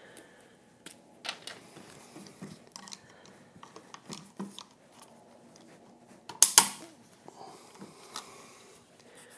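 White plastic prop guards being snapped onto the arms of a Keyshare Kimon quadcopter: scattered light plastic clicks and rattles, with one loud sharp snap about two-thirds of the way through.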